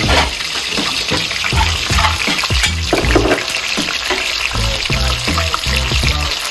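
Food frying in hot oil, a continuous sizzle, with music playing over it that carries a steady, stepping bass line.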